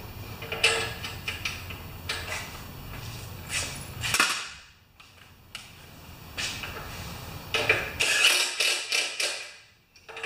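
Scattered clicks, knocks and clattering of tools and parts being handled, with a quiet stretch about four seconds in and a busier run of clatter near the end.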